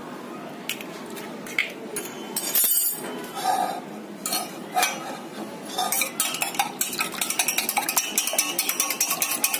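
Wire whisk beating eggs in a stainless steel bowl. A few scattered clinks and knocks come first, then from about six seconds in a fast, steady metallic rattle of the whisk wires against the bowl.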